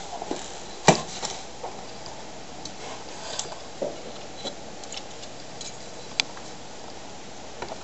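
Scattered light clicks and knocks of handling noise over a steady hiss, with a sharper knock about a second in and a thin click about six seconds in.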